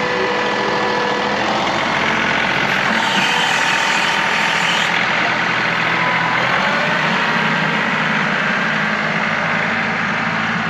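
John Deere 2038R compact tractor's three-cylinder diesel engine running steadily while plowing snow.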